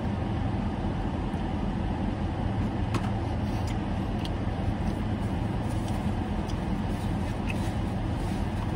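Steady rush and hum of a car's air conditioning running on high inside the closed cabin, with a few faint clicks and rustles of a paper-wrapped wrap being handled.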